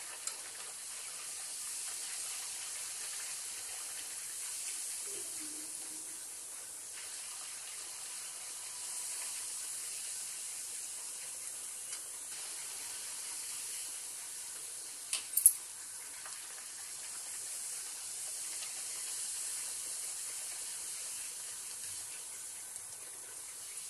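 Buckwheat-flour puris deep-frying in hot ghee in an iron kadai: a steady sizzle. About fifteen seconds in come two sharp clicks of the metal slotted spoon against the pan.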